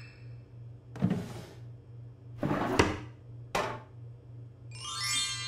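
Cartoon sound effects of a kitchen drawer being opened and utensils taken out: three short sliding swishes, the second with a sharp click. Near the end comes a brief rising musical sweep.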